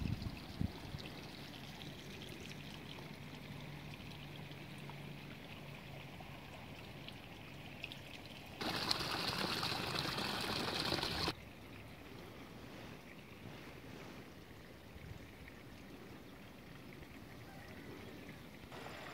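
Faint, steady trickle of running water, with a louder hiss for about three seconds near the middle that starts and stops abruptly.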